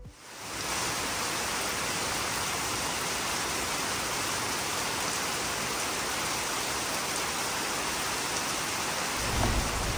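Heavy rain pouring steadily, an even hiss. A low rumble joins in near the end.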